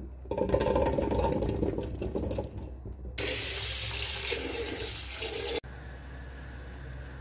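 Cherries tipped from a plastic bowl into an empty stainless-steel pot, a rapid patter of small knocks for about three seconds. Then a kitchen tap runs water into the pot, a steady hiss that cuts off abruptly about two thirds of the way through, leaving a faint steady background noise.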